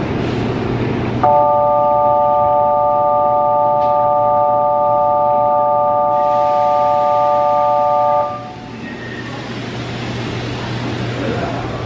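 Station platform departure signal: an electronic chord of several steady tones sounds for about seven seconds and cuts off abruptly, over a steady low hum of station and train noise.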